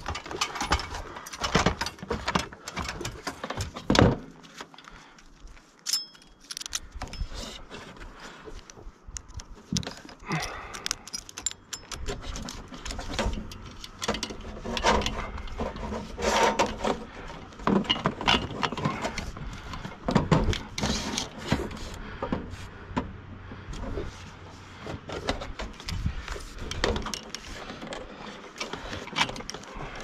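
Irregular knocks, clanks and rattles of climbing an aluminium ladder onto a metal roof and handling fibre drop cable and its hardware at a steel service mast, with the worker's breathing close to the microphone.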